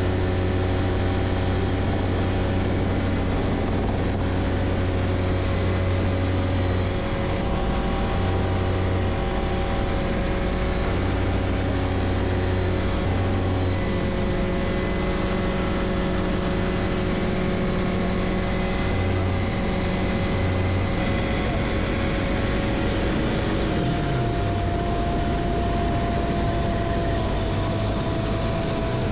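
Light helicopter's engine and rotor running steadily in flight, heard from inside the cabin as a loud, even drone with steady whining tones. About three-quarters of the way through, the pitch shifts: a low tone slides downward and a higher tone sets in.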